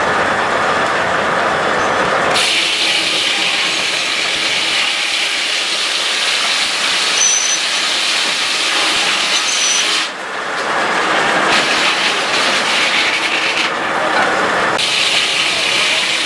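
Large circular sawmill blade running and cutting through a log on the carriage, a loud, harsh hiss of the cut that starts about two seconds in and eases off about ten seconds in, returning about fifteen seconds in as the next cut begins.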